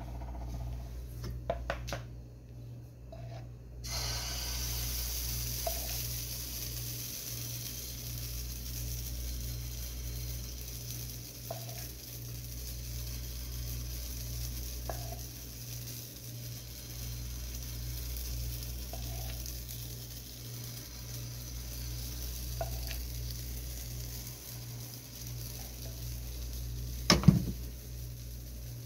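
Pancake batter frying in hot oil in a wok, a steady sizzle that starts about four seconds in, over a steady low hum. A few light ticks, and one sharp knock near the end.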